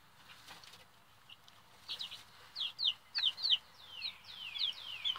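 Baby chicks peeping: after a quiet start, a run of short, high peeps, each falling in pitch, several a second from about two seconds in.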